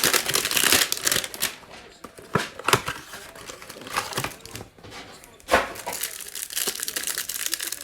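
Plastic wrapper of a basketball trading-card pack being torn open and crinkled, with sharp crackles and a louder snap about five and a half seconds in.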